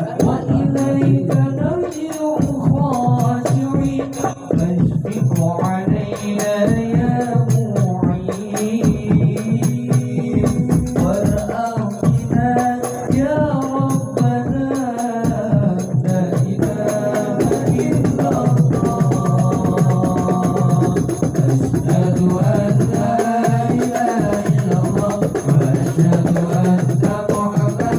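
Sholawat devotional music: a melody line rising and falling over steady hand percussion with tambourine-like jingles, with no sung words.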